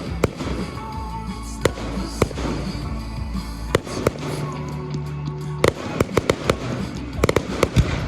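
Fireworks going off: sharp bangs at irregular intervals, turning into a quick run of cracks and bangs in the last two seconds.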